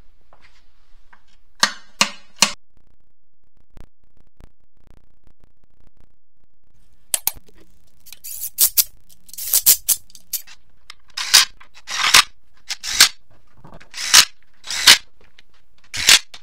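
Hammer striking metal parts of a Getrag HM290 manual transmission during reassembly: three sharp taps about two seconds in, then after a pause a run of strikes at about one to two a second, each ringing briefly.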